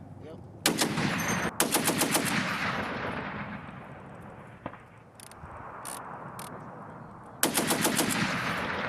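M2 .50 caliber heavy machine gun fired in three short bursts, about ten rounds a second. There are two bursts back to back about a second in and a third near the end, each followed by a long rolling echo. The bursts mark targets for the aircraft.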